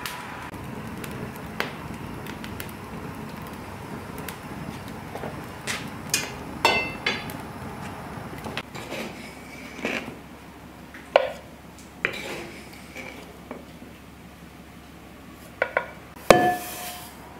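Scattered clinks and knocks of kitchen crockery and tin utensils being handled, a few of them ringing briefly, with a louder knock near the end as a tin cup scoops from a stoneware crock.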